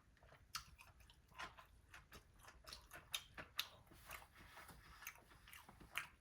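Faint, irregular crunches and mouth clicks of someone chewing a crispy fried Nashville hot chicken tender.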